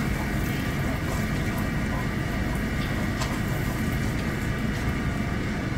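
Butter sizzling steadily as it froths and browns in a stainless steel skillet, with a silicone spatula stirring it and scraping the pan.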